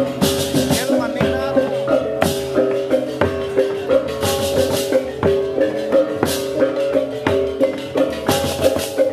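Balinese baleganjur gamelan playing: ringing metal gong and gong-chime tones over a fast, steady drum beat, with clashing hand cymbals in crashes about every two seconds.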